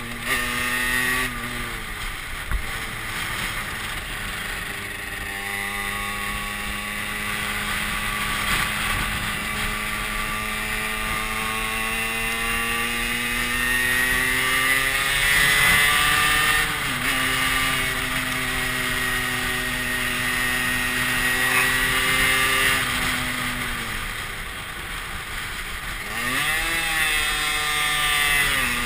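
Derbi Senda moped's single-cylinder engine under way, revs falling about a second in, then climbing slowly for a long stretch, dipping briefly, dropping again and rising sharply near the end with throttle and gear changes. Wind rushes over the microphone throughout.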